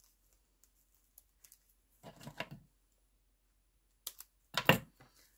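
Red paper raffia being handled and cut: a short rustle about two seconds in, then a few sharp snips of scissors near the end, the last of them the loudest sound.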